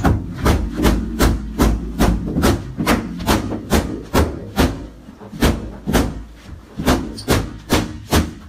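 A stick beating an inflatable punching toy in quick repeated whacks, roughly two to three blows a second.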